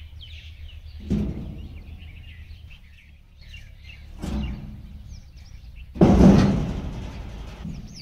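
Thresher's sheet-metal straw-delivery chute swung by hand on its swivel: three hollow metal clunks with scraping, about a second, four seconds and six seconds in, the last the loudest and dying away over a second or so. Birds chirp throughout.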